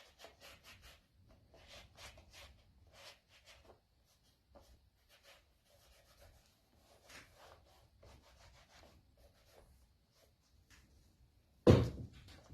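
Rubbing wax into a vegetable-tanned leather pouch: a run of short, irregular rubbing strokes, then a single loud knock near the end.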